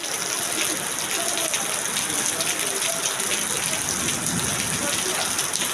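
Heavy rain pouring down, a steady dense hiss of drops striking hard surfaces.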